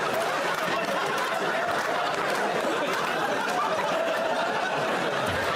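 Studio audience and panelists laughing steadily, mixed with indistinct overlapping talk.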